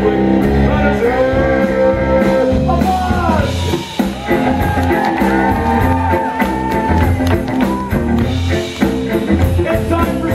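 Live rock band playing loudly: bowed amplified cello with drum kit and bass guitar, and a voice singing.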